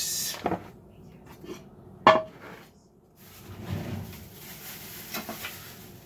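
A plastic food container is moved across a wooden table, and a ceramic plate is set down with one sharp, briefly ringing clink about two seconds in. Softer handling and rustling follow.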